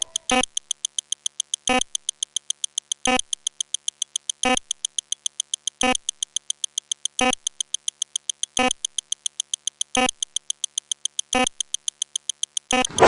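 Sped-up counting sound effects: a rapid, even run of short electronic ticks, several a second, with a louder pitched blip about every second and a half. A louder noisy hit starts right at the end.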